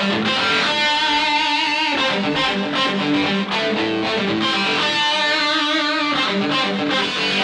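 Hard rock music led by electric guitar, which comes in suddenly and loudly and plays on steadily.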